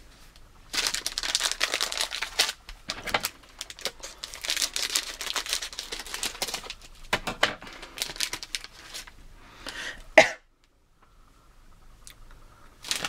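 Plastic candy wrapper crinkling and tearing as a packet of gummy candies is pulled open, in several spells with short pauses. A sharp click comes about ten seconds in.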